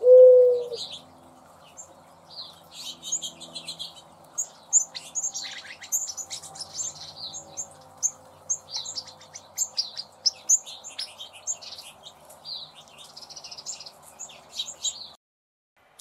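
A mourning dove's low coo, one held note of about half a second, followed by many quick high chirps from small birds, which cut off suddenly near the end.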